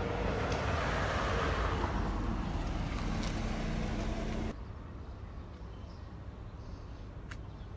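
Street traffic noise: a louder rush of traffic with a low hum for the first four and a half seconds. It then cuts off abruptly to a quieter street background with a few faint clicks.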